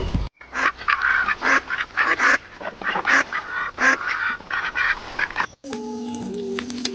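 Farm waterfowl calling loudly in a quick series of harsh calls, about two a second, for some five seconds. Near the end it cuts off abruptly to soft music with steady held notes.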